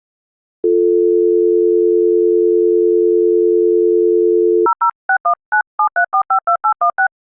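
UK landline dial tone, a steady continuous two-note hum, running for about four seconds and cutting off as the number is keyed in. A rapid run of about thirteen DTMF touch-tone digits follows: an international number dialed from the UK, beginning with the 00 international prefix.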